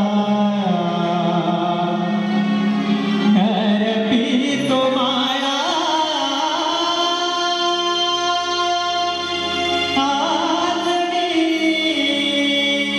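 A male folk singer singing a Marathi devotional stavan in long, drawn-out melodic phrases over sustained instrumental accompaniment.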